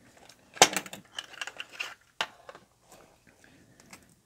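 Orange plastic precision-screwdriver case being handled as a screwdriver is taken out: a sharp plastic snap about half a second in, a short rattle of the screwdrivers in the case, and a second click about two seconds in, then a few faint ticks.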